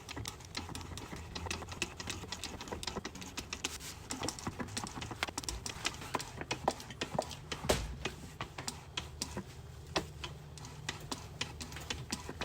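Rapid, irregular light clicks and taps throughout, over a faint steady low hum.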